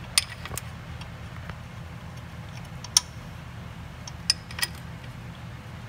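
About five sharp metallic clicks and taps, the loudest about three seconds in, as bolts are handled and started by hand in the rear main seal cover on a 6.0 L LS engine block. A steady low hum runs underneath.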